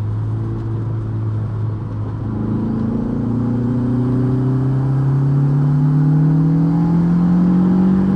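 Big-turbo 1.8T 20-valve four-cylinder engine on a wide-open-throttle pull in third gear: the engine note climbs steadily in pitch through the revs and grows louder from about two seconds in.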